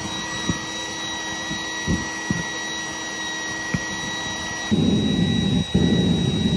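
Waste-oil burner firing a homemade propane-tank foundry, running steadily with a rushing hiss and a faint steady whine, with a few light knocks. About five seconds in, a louder low rumble takes over.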